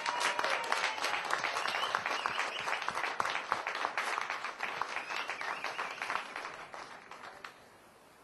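Audience applauding, the clapping dying away about seven and a half seconds in.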